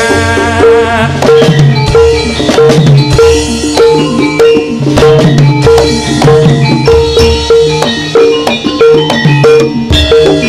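Instrumental passage of a Javanese dance band: drums and percussion keep a steady beat under a short melodic note repeated at an even pace and a pulsing bass. The singer's last sung word falls about a second in.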